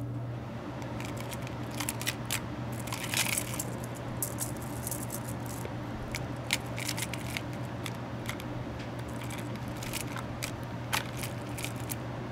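Heavy gold rope chain clinking and rattling as it is handled and piled onto a digital pocket scale: scattered, irregular sharp metallic clicks, over a steady low hum.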